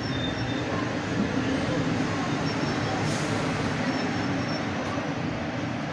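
South Western Railway electric multiple-unit train rolling slowly past the platform, a steady low rumble of wheels on rail and running gear, with a brief hiss about three seconds in.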